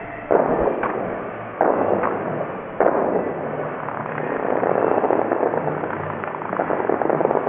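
Bellagio fountain water shooters firing: three sudden blasts about a second and a quarter apart, each followed by the hiss of falling spray, then a longer swelling rush of water.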